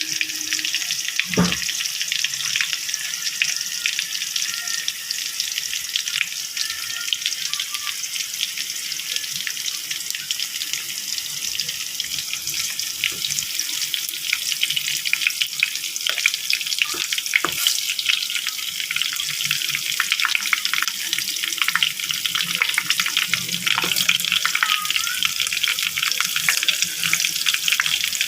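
Ham frying in a pan: a steady sizzle with dense crackling and spitting of hot fat, and a few sharper clicks along the way.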